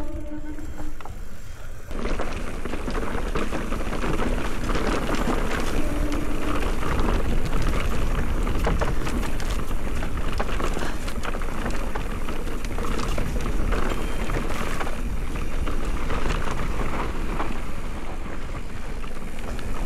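Wind rushing over the action-camera microphone and the tyres of an electric mountain bike crunching over loose dirt and gravel, with many small clicks and rattles. The noise jumps up sharply about two seconds in and then stays loud.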